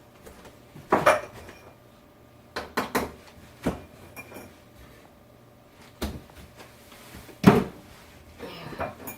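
Dishes and cutlery clinking and knocking as food is served at the table: a handful of separate sharp knocks, three close together about three seconds in and the loudest one near the end.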